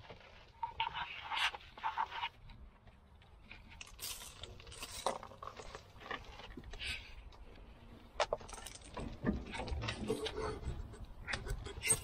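Dry, fluffy nest debris being pulled out of a cab ceiling and dropping into a cardboard box, with irregular rustling, scraping and small clicks and taps, busier near the end.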